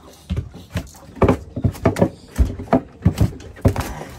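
A freshly caught fish thrashing on a boat's deck while held down with a cloth: a run of irregular knocks and slaps, about two a second, louder in the second half.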